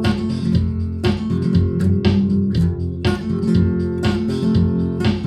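Guitar strummed in a steady rhythm, about one strong stroke a second: an instrumental passage of a song, between sung verses.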